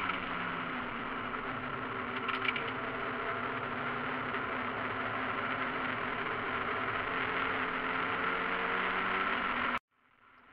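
Mazda MX-5 race car's four-cylinder engine running at steady revs, heard from inside the cockpit. There is a brief clatter about two and a half seconds in. Near the end the sound cuts off abruptly, leaving only a much fainter sound.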